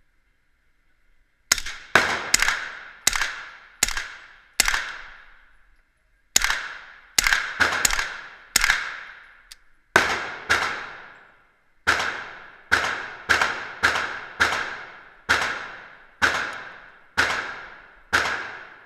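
Suppressed 9mm short-barreled rifle (a Quarter Circle 10 with an Octane suppressor) firing about two dozen shots in three quick strings, with short pauses about five and eleven seconds in. Each shot is a sharp crack followed by a reverberant tail.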